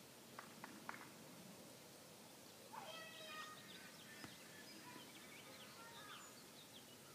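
Faint, distant bird calls in a quiet open yard, a string of short high chirps and calls starting about three seconds in, with a few soft clicks in the first second.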